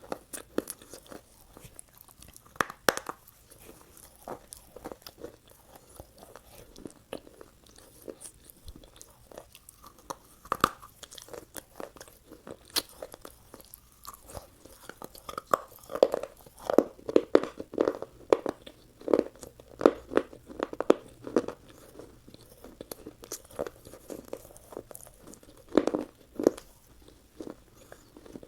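Close-miked eating of a McDonald's fast-food meal: bites and crunchy chewing. The crunching comes thick and fast for several seconds in the middle, and there is one louder crunch near the end.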